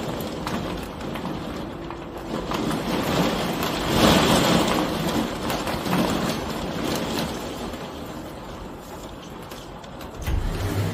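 Summer rainstorm outside a window: rain hiss swelling and fading in gusts, loudest about four seconds in, with a short low rumble near the end.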